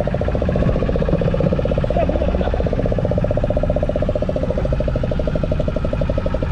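Fishing boat's engine running steadily, with a fast, even pulse.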